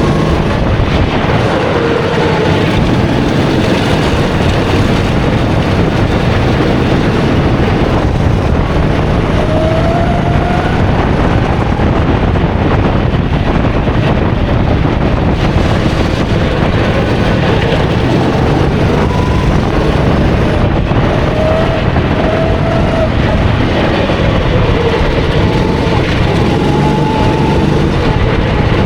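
270cc four-stroke kart engine running at race pace, its pitch rising and falling with speed, under a loud steady rushing noise.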